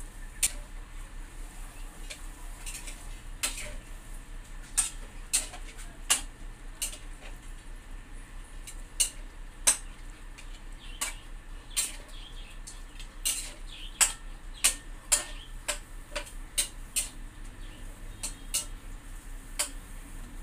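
A puppy eating dry kibble from a stainless-steel bowl: irregular crunches and clinks of kibble and teeth against the metal bowl.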